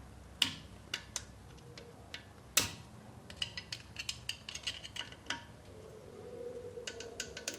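Steel picks clicking and scraping against metal inside a Suzuki Samurai's front steering knuckle: scattered sharp clicks, one louder about two and a half seconds in, then a quick run of small ticks.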